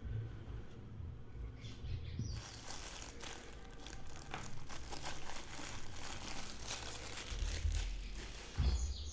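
Packaging being handled during an unboxing: crinkling and rustling starts a couple of seconds in and runs dense with fine crackles, ending with a low thump near the end.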